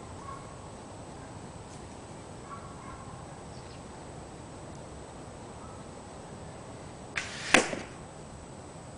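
An arrow shot from a small pomegranate-wood self bow (30 lb draw) arrives with a short rush and strikes a cardboard box target with one sharp smack, near the end.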